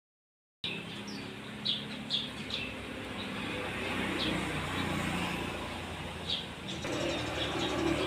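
Eurasian tree sparrows giving short, sharp chirps, a quick run of them in the first few seconds and a couple more later, over a steady low background rumble.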